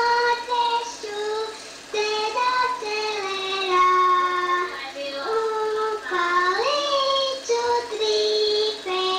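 A young child singing solo, holding long notes with slides between pitches, in short phrases with brief breaks between them.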